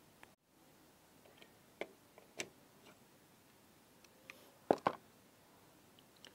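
Small scattered clicks of steel pliers and fingers handling a desoldered MOSFET as it is pulled off a power-supply circuit board. Two sharper clicks come in quick succession about three-quarters of the way through.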